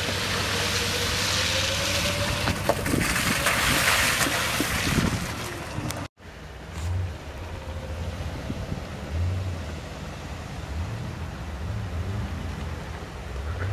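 Jeep Liberty driving through a shallow muddy water crossing: loud splashing and spray hiss over the engine. After a sudden cut about six seconds in, the engine runs more quietly as the SUV moves on dirt, with low rumbles coming and going.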